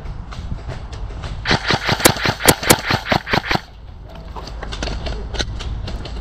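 Airsoft electric rifle firing a rapid string of single shots, about a dozen sharp cracks in two seconds starting a second and a half in. Wind rumbles on the microphone throughout.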